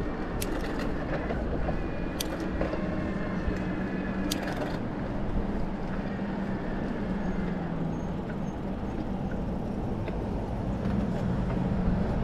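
Steady wind and road noise from an e-bike rolling along a paved city street, with three sharp clicks in the first five seconds.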